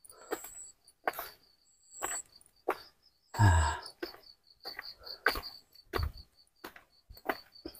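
Crickets chirping in a steady pulsing rhythm, with footsteps on a stone-paved path about every 0.7 s and one louder low thud about halfway through.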